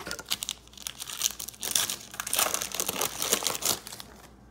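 Foil wrapper of a hockey card pack crinkling and tearing as it is handled and ripped open by hand: a dense run of sharp crackles that dies away near the end.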